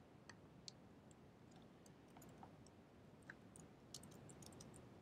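Faint, irregular clicks of typing on a computer keyboard, coming more thickly near the end.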